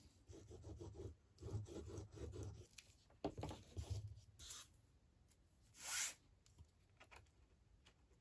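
Faint rubbing of a liquid glue bottle's tip across a die-cut cardstock label, then paper handled and slid across the craft mat, with a short louder swish of paper about six seconds in and a few light taps as the label is pressed down onto the card.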